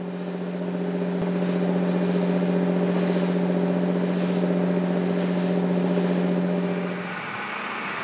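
Fishing boat's engine droning steadily under way, with a rushing hiss of spray and wind over the bow. About seven seconds in the drone drops away and the sound becomes quieter.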